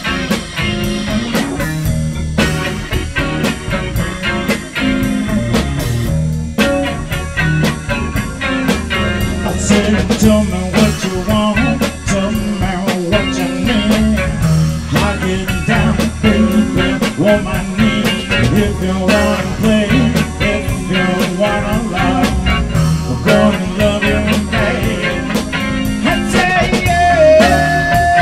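Blues-rock band playing live: electric guitar, keyboard and drum kit together, with a long held note near the end.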